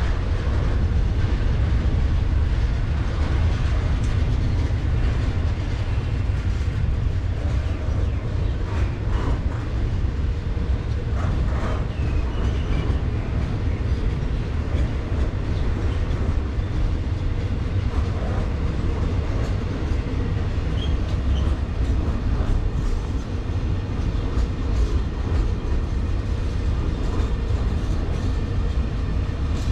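Freight train rolling on the rails: a steady deep rumble of wheels and wagons with scattered clicks and a few brief squeals.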